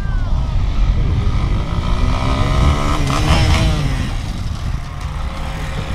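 Off-road dirt bike engine running, its revs rising and then falling back about halfway through.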